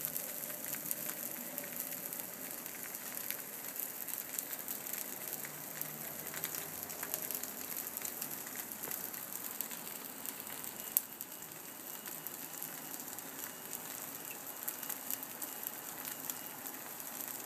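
Slices of liverwurst sizzling in a nonstick frying pan: a steady light crackle and hiss of frying fat, with one sharper pop about eleven seconds in.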